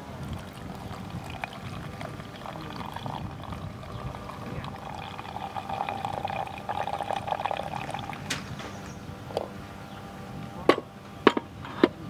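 Liquid pouring for a few seconds, then a sharp click, and near the end three louder sharp knocks.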